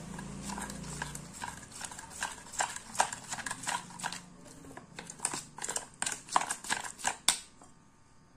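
Steel spoon knocking and scraping against a stainless steel bowl while stirring a thick spice paste, a quick irregular run of clinks that stops shortly before the end.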